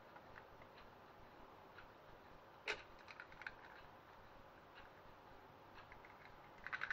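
Near silence with faint small clicks and taps from hands handling a raw egg and its shell over a paper-lined air fryer drawer. There is one sharper click about three seconds in and a quick run of clicks near the end.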